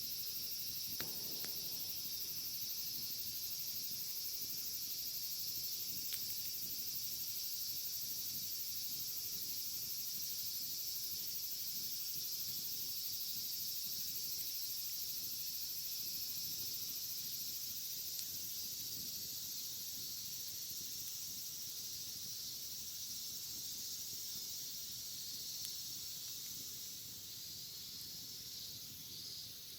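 Cicadas droning in a steady, continuous high-pitched chorus, easing off a little over the last several seconds, with a bonfire crackling faintly underneath.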